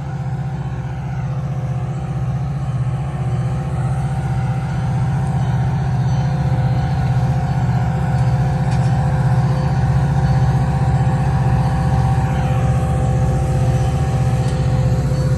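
Steady drone of an idling Metra diesel locomotive at a stand: a low hum with a faint constant whine over it.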